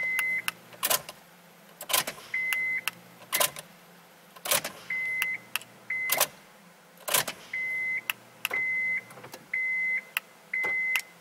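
A 2004 Honda Civic's dash warning chime beeping in short tones at one pitch, about once a second toward the end, between sharp clicks as the ignition key is turned on and off again and again to put the car's keyless-entry system into remote programming mode.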